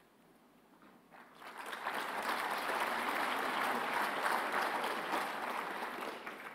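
A large seated audience applauding, starting about a second in, building quickly and then tapering off near the end.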